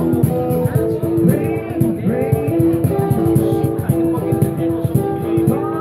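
Live acoustic band: acoustic guitars strumming over a steady beat on a cajon, with a man singing.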